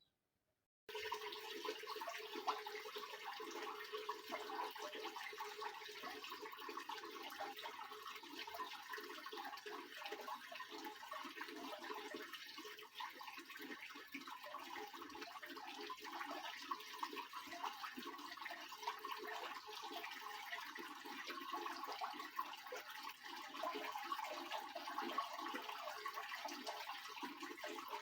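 Steady rush of running water in a Soviet washing machine, starting about a second in after a brief silence.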